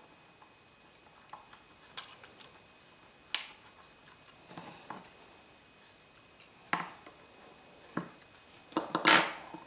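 Small metallic clicks and taps of a screwdriver and tiny screws against an iPhone 4's frame during reassembly: scattered light ticks, a sharper tap about three seconds in, and a louder short clatter near the end.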